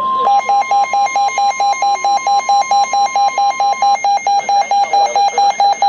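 Weather-alert radio sounding its alarm for a new warning: a loud electronic beep repeating about four times a second. Beneath it, the steady 1050 Hz weather-radio warning alarm tone carries on faintly until about four seconds in.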